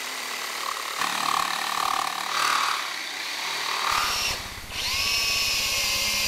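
Electric jigsaw cutting through plywood, its sound rising and falling with the cut. About five seconds in, a drill-driver whines up to speed and runs steadily as it drives a screw into wood.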